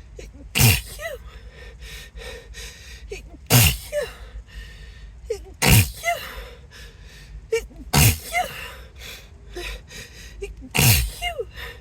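A person sneezing five times in a row, a loud sneeze every two to three seconds, with short breaths between: a sneezing fit.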